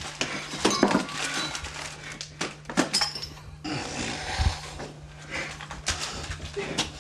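Irregular knocks, thumps and clatter, a few of them sharp, over a steady low electrical hum.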